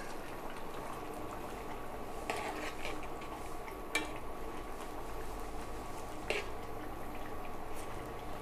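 Tamarind gravy with gram-flour pancake pieces simmering in a nonstick pan, stirred with a spoon that knocks against the pan three times.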